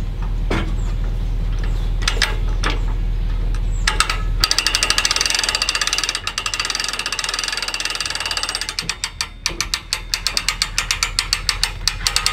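Hand-cranked boat trailer winch ratcheting as it hauls an airboat up onto the trailer, its pawl clicking rapidly over the gear teeth. A few separate knocks come first, then the fast steady clicking starts about four seconds in.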